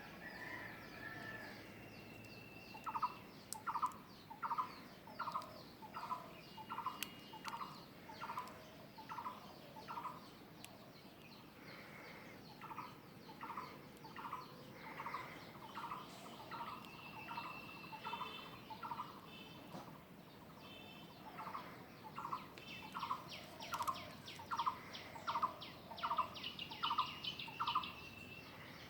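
Birds calling: one bird repeats a short note about ten times in a row, roughly one and a half notes a second, three times over, while other birds give higher thin whistles and trills.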